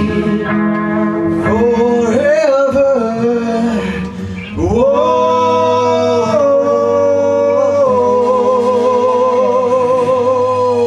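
Live rock band playing, with singing over guitar: about halfway through the voice glides up and holds one long wavering note.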